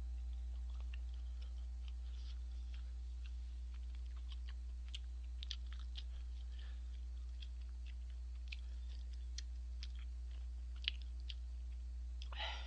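Mouth sounds of chewing tteokbokki rice cakes: faint, scattered small wet clicks at irregular intervals, over a steady low hum.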